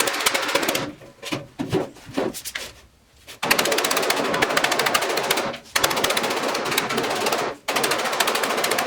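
A power tool hammering out rapid impacts on metal in bursts of about two seconds, with a few separate knocks in between, during work on a steel tool box drawer.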